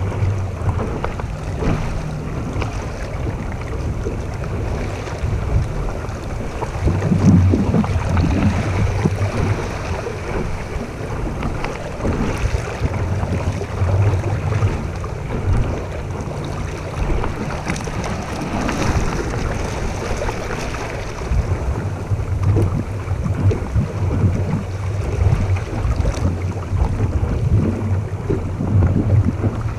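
Wind buffeting the microphone over water rushing and splashing along a small sailboat's hull while it sails.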